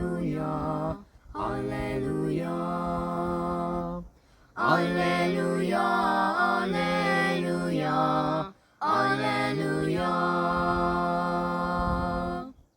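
Mixed voices singing a cappella in four-part harmony, the closing alleluia chorus of a plainchant Easter hymn: four phrases with short breaks between them, the last chord held and then stopping.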